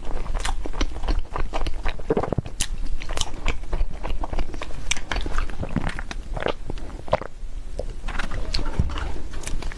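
Close-up eating sounds: a person biting into and chewing a soft dessert, with many short, irregular mouth clicks.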